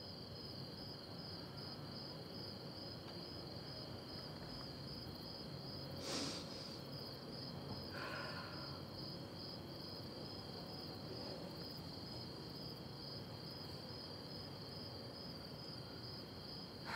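Crickets chirring steadily, a faint high-pitched trill that pulses rapidly. A brief soft sound comes about six seconds in, and a smaller one about two seconds later.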